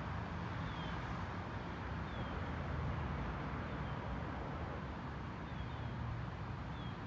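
A steady low engine hum under outdoor background noise, with a few faint, short high chirps scattered through it.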